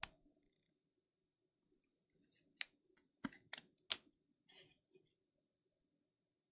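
Trading cards being handled and slid into rigid plastic toploaders: a short swish, then a handful of sharp plastic clicks and taps between about two and four seconds in.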